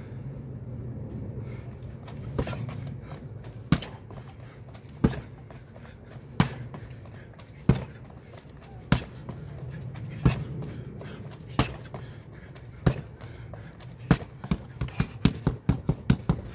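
Strikes landing on a hanging heavy punching bag: single hard thuds about once every second and a half, then a fast flurry of about ten hits in the last two and a half seconds.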